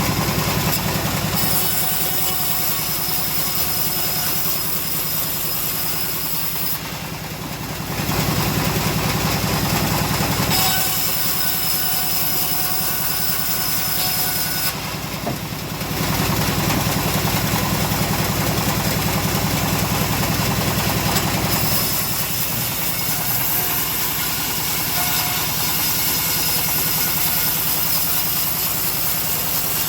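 Engine-driven homemade bandsaw mill running steadily while sawing teak logs, with two short dips in the sound about a quarter and half way through.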